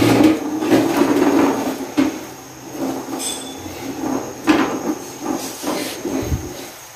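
Chopped onion pieces dropped by hand into a nonstick frying pan, then stirred with a wooden spatula: scattered knocks and scraping against the pan, over a steady hiss.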